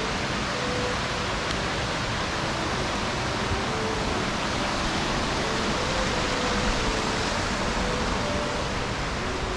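Steady rush of falling water from a nearby waterfall: an even hissing noise that holds throughout.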